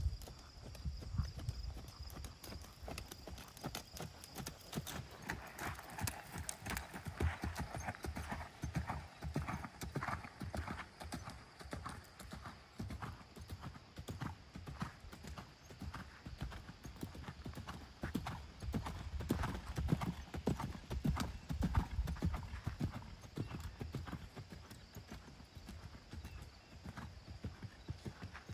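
Hoofbeats of a bay horse trotting under saddle on sand arena footing, a steady run of regular footfalls.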